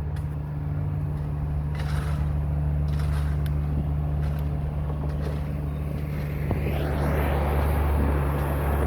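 Steady low engine drone, with a few faint clicks. About six and a half seconds in, a rushing hiss swells up, fitting a handheld torch flame being put to the model.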